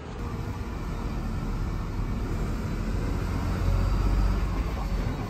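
Deep, steady rumble of a lorry's diesel engine heard from inside the cab as it moves along a ferry's vehicle deck, growing a little louder toward the end.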